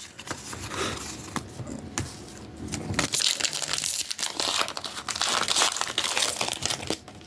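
Foil wrapper of a Pokémon card booster pack being torn open and crinkled, a dense run of crackling and rustling with many small sharp crinkles.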